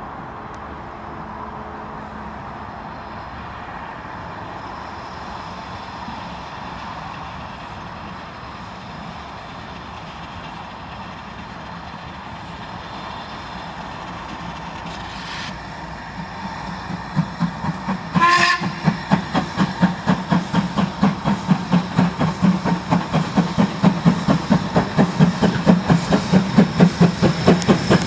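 LMS Ivatt Class 2MT 2-6-0 steam locomotive No. 46521 starting a train. A faint steady background gives way to one short whistle blast about two-thirds of the way through, then the chimney exhaust beats begin and come louder and quicker as the engine pulls away and draws near.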